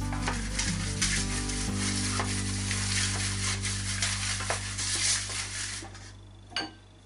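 Pastry brush scrubbing and swishing through oil and spices in an aluminium pan, mixing them: a dense, rapid scrubbing that fades out about six seconds in, followed by a single click.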